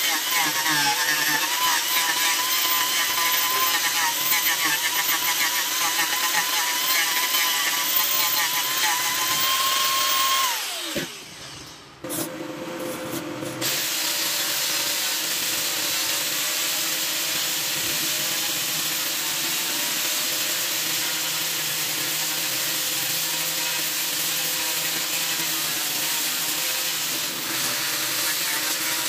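Handheld angle grinder with a flap disc grinding and sanding a carved wooden vase: a steady high motor whine over the rasp of abrasive on wood. About ten seconds in the motor's pitch falls as it winds down. A second or so later the grinder is running steadily again, at a lower pitch.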